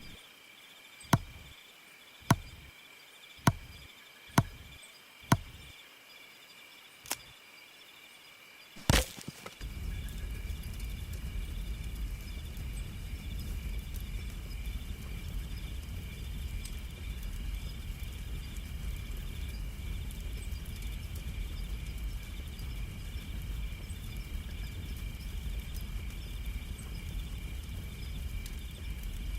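A series of sharp knocks about a second apart, then a louder crack about nine seconds in. After the crack a steady low rumble, like wind on the microphone, runs on under a constant high-pitched chirring.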